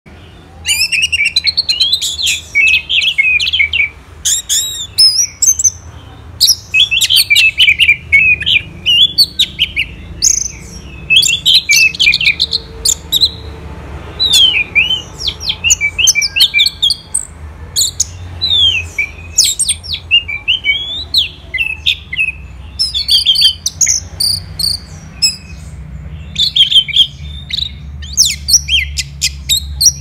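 Orange-headed thrush singing: a long run of varied, rapid whistled phrases broken by short pauses, with quick clicking notes near the end.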